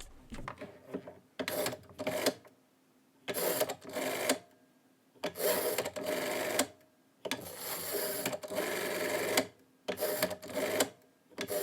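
Rotary telephone dial being dialed, several digits in turn. Each digit is a whirring, clicking run of a second or two as the dial spins back, with brief pauses between them.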